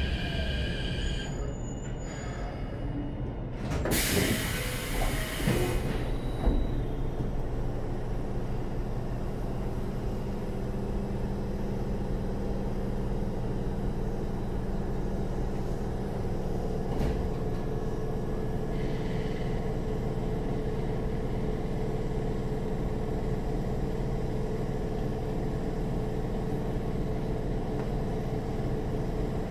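Keikyu 1500-series commuter train standing at a platform: about four seconds in, its doors open with a rush of air and a clatter. After that, the stationary car's equipment keeps up a steady hum.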